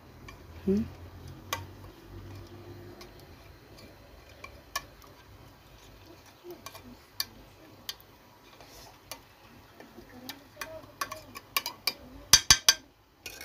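Metal spoon scraping and tapping against a glass baking dish while spreading béchamel sauce, with scattered light clicks and a quick run of louder taps near the end.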